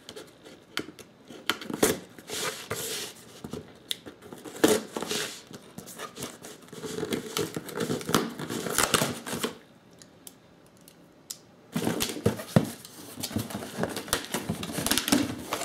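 A folding knife slitting the packing tape on a small cardboard box, then the box flaps and paper inside being handled, with scratchy cardboard and crinkling paper noises. It goes quiet for a moment about ten seconds in, then the rustling starts again.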